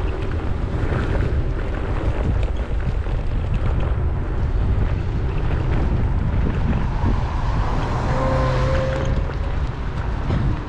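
Wind buffeting the microphone over the rumble of scooter wheels rolling on rough, cracked concrete sidewalk, with scattered small knocks.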